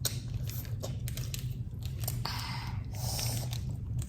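Eating at a table: soft chewing and small clicks of food and packaging being handled, with a brief rustle or tear about two seconds in, over a steady low hum.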